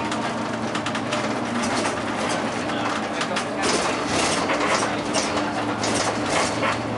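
Cabin noise inside a moving city bus: a steady engine drone with road noise and irregular rattling of the interior.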